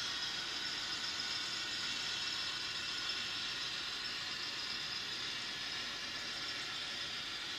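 Steady whirring hiss of small electric model-railway motors running.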